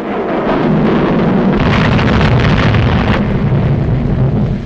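Sound effect of a volcanic eruption: a loud, continuous low rumble with explosive blasts.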